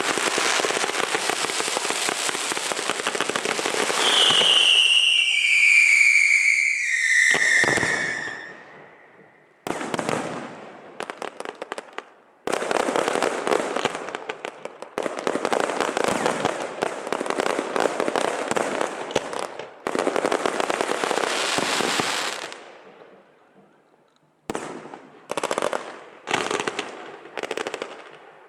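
Strings of firecrackers crackling in dense, rapid volleys, with a whistling firework's falling whistle about four seconds in. The crackling stops and restarts several times, ending in shorter bursts.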